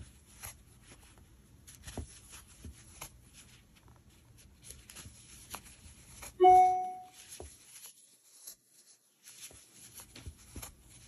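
Soft scratching and ticking of a crochet hook working chunky acrylic yarn. About six and a half seconds in, a single loud ringing musical tone sounds and fades within about a second, followed by a brief near-silent gap.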